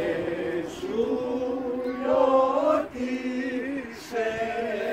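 Men's voices chanting unaccompanied, long held notes stepping from one pitch to the next, with short breaks about three and four seconds in.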